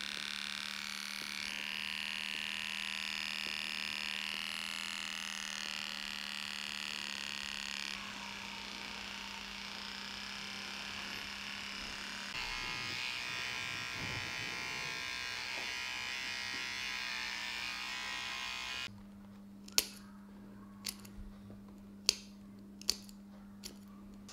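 Electric dog clippers buzzing as they trim the hair between a puppy's paw pads, the tone of the buzz shifting a few times as the blade works the paw. The clippers cut off about 19 s in, followed by several sharp clicks of a nail clipper cutting the claws.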